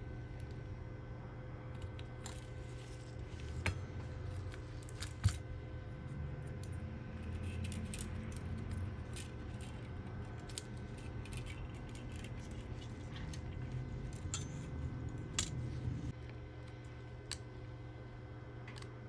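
Small repair tools clicking and scraping against a smartphone as its screen is replaced, in scattered sharp ticks over a steady low hum.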